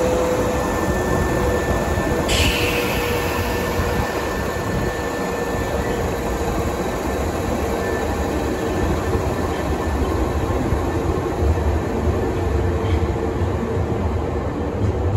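Semboku 3000 series resistance-control electric train running past close along a station platform: rumbling wheels on the rails with a steady motor hum. A hiss of air sounds about two seconds in.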